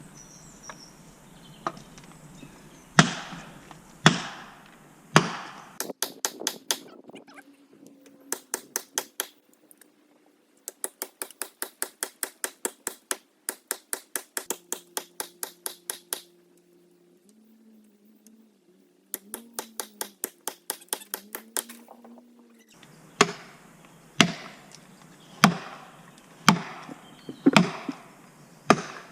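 Hammer blows driving a felling wedge into the back cut of a Leyland cypress, to tip a tree that is straining but not yet moving. The strikes come about one a second, with runs of quicker strikes, about three or four a second, in the middle.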